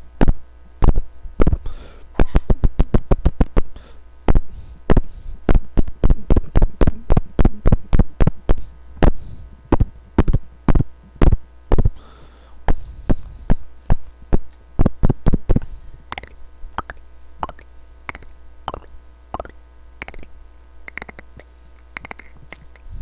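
Mouth clicks and pops made with the tongue and lips, imitating dripping water drops. There are many sharp clicks, at times several a second, that grow fainter and sparser after about sixteen seconds.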